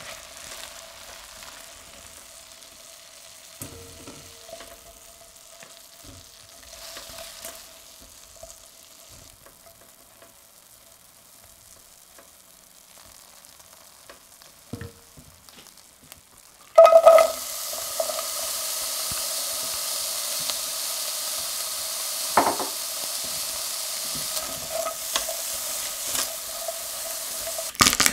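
Food frying in oil in a stainless steel pan: a quiet sizzle with spatula scrapes over a faint steady tone. About two-thirds of the way in, something hits the hot oil with a sudden loud sizzle, which then holds as a steady hiss with occasional crackles until near the end.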